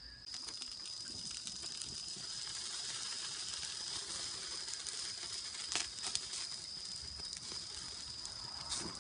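Wood campfire crackling: a dense run of small crackles, with a few louder pops about six seconds in and again near the end.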